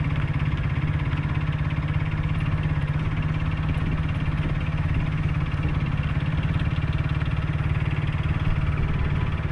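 Motorcycle engine running steadily at low revs, with an even low hum and no revving.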